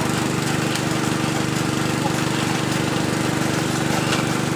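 Motor of a water-well drilling machine running steadily, a constant even hum.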